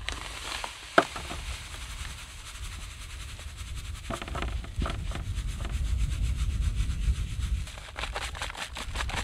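Dry groundbait being poured from a plastic bag and rubbed through a sieve into a plastic bucket: a steady gritty hiss, with a sharp click about a second in and crackly ticks near the end. A low rumble swells in the middle.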